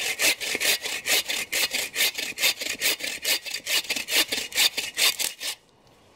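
Hand saw cutting through a dead, downed birch limb in quick, even back-and-forth strokes, about five a second, stopping near the end.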